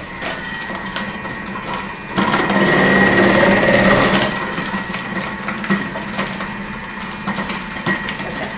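Thermomix TM6 motor running with its cutter attachment, grating carrots on the thick-grate setting: a steady whine that grows louder about two seconds in and eases again a couple of seconds later.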